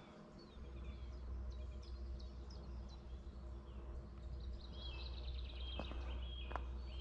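Songbirds singing, with short chirps and whistled trills, over a steady low rumble that sets in just under a second in.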